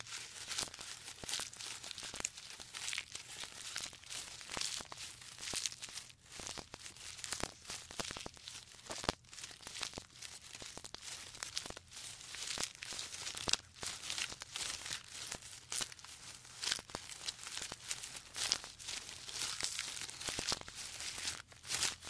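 Giraffe browsing in a tree, stripping and chewing leaves and twigs: an irregular, continuous crackling, tearing and rustling.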